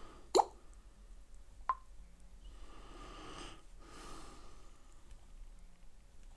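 Two sharp taps a little over a second apart, the first the louder, as a fingertip taps a smartphone's touchscreen; then two breaths through the nose.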